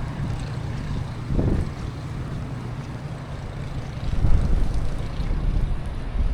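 Motor vehicle engine running close by with a steady low hum, louder from about four seconds in, with wind buffeting the microphone.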